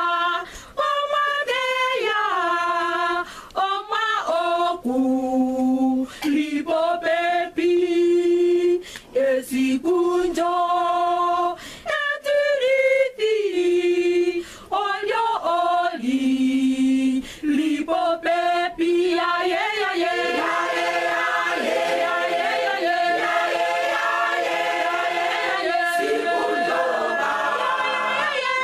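A group of women singing unaccompanied, one voice close to the microphone standing out in held, sliding notes with short breaths between lines. About twenty seconds in, many more voices fill in and it becomes a steady full choir sound.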